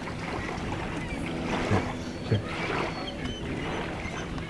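Steady low rumble of wind on the microphone, with two short low thumps about two seconds in.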